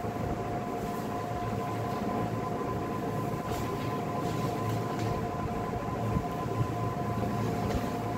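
Steady mechanical hum with two constant whining tones, and a few faint short sounds near the middle.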